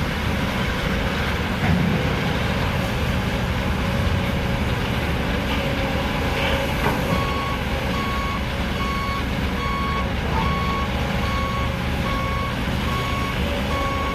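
Heavy diesel machinery, an excavator and a dump truck, running steadily. About halfway through, a reversing warning beeper starts, beeping regularly, a little faster than once a second.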